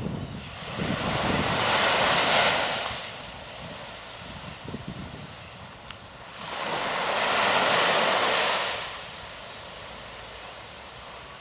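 Sea waves breaking: two waves about five seconds apart, each a rush of surf swelling and fading over two to three seconds, over a steady lower wash. Wind buffets the microphone near the start.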